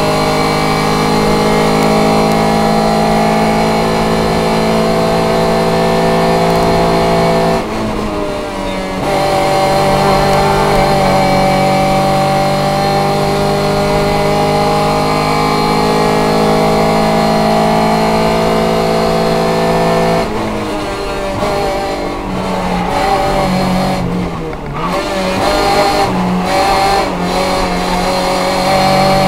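A competition car's engine heard from inside the cabin, held at high revs through long straights. About eight seconds in it lifts off briefly, and from about twenty to twenty-five seconds the revs break up in a series of lifts and quick blips as the driver slows for bends.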